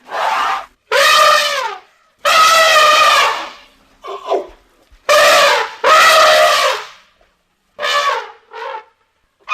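Elephant trumpeting: a string of about eight separate calls of a second or less up to about a second and a half each, with short silent gaps between them.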